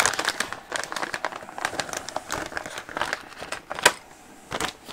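Thin plastic kit parts bag crinkling and crackling as it is handled, with one sharper snap a little under four seconds in.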